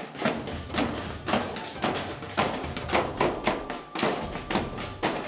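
Double-headed marching drums beaten with sticks in a quick, steady beat.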